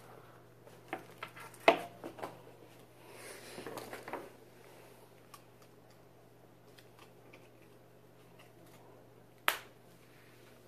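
A few light clicks and taps with a brief soft rustle, and one sharper click near the end, over a faint low steady hum.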